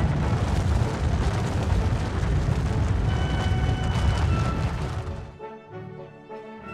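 Deep, steady rumble of an avalanche, mixed with orchestral music; the rumble fades out about five seconds in, leaving the music with brass.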